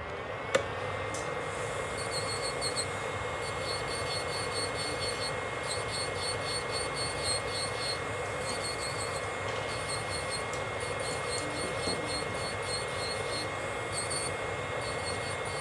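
Electric nail drill (e-file) switched on with a click, then running at a steady high whine while its bit files and rubs gel off the nails.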